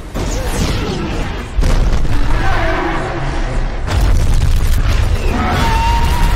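Action-film soundtrack of a destruction scene: a heavy low rumble with booms and crashes, rising sharply about a second and a half in and again about four seconds in, with voices and a thin steady tone in the mix.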